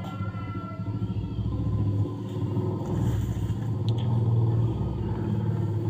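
Steady low rumble of a running engine, growing a little louder after about two seconds, with one faint click about four seconds in.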